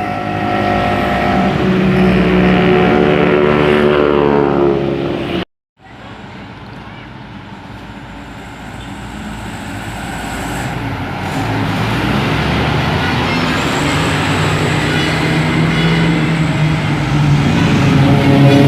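Large tour bus's diesel engine running as the bus drives past, its pitch sliding down. After a short break, another bus engine is heard approaching, getting steadily louder.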